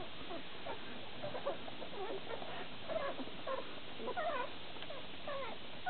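Newborn standard poodle puppies squeaking while they nurse: many short, high squeaks that rise and fall in pitch, overlapping one another.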